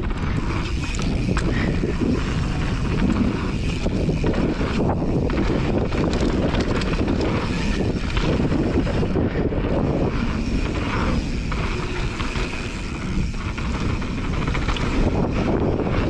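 Mountain bike descending a hard-packed dirt trail at speed: wind rushing over the camera microphone and knobby tyres rolling on the dirt, with constant small rattles and clicks from the bike.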